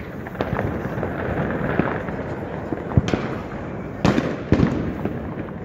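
New Year's Eve fireworks and firecrackers going off all around: a steady background of distant crackling and popping, with a sharp bang about three seconds in and two more close together a second later.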